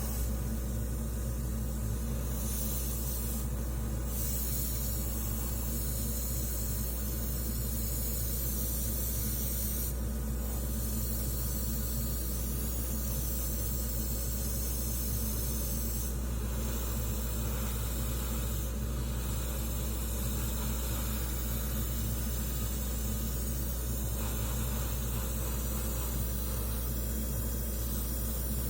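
Airbrush spraying paint with a steady hiss that breaks off briefly a few times, over a constant low machine hum.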